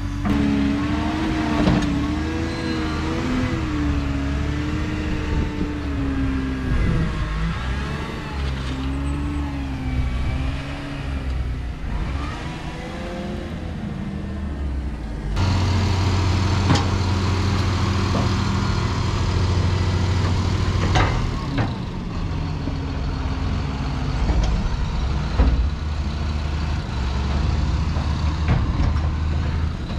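JCB 435S wheel loader's diesel engine revving up and down as it climbs and works a pit of chopped maize silage. About fifteen seconds in, the sound changes suddenly to heavy diesel engines running more steadily as a tractor tips a trailer load of silage.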